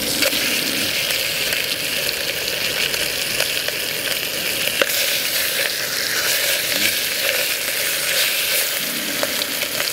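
Trout chunks frying in butter in a stainless camp pot: a steady sizzle, with a few faint clicks as the pieces are moved in the pan.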